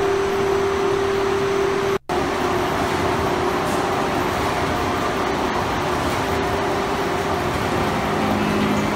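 Citrus packing line machinery running: a dense, steady mechanical noise with a constant hum. It cuts out for a split second about two seconds in, and the hum is weaker afterwards.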